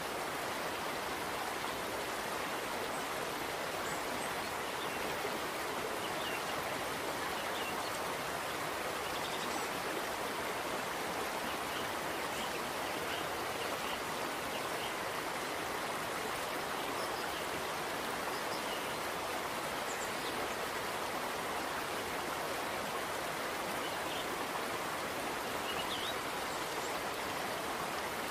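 A steady, even rushing noise like flowing water, with faint short high chirps here and there. It runs unchanged across the cuts in the picture.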